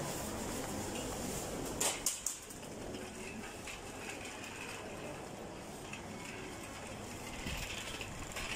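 Steady background noise of a busy supermarket entrance, with a short rattle of three sharp clicks about two seconds in.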